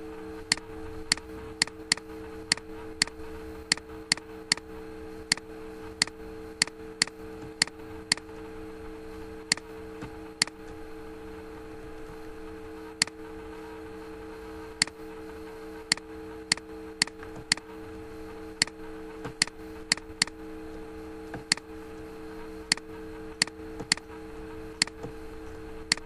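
Computer mouse button clicking at an uneven pace as short strokes are drawn: sharp single clicks, sometimes two a second, with pauses of a few seconds, over a steady low hum.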